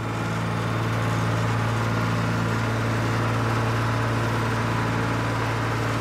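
Massey Ferguson 9500 tractor's diesel engine running with a steady low drone as the tractor drives slowly forward, swelling in over the first second.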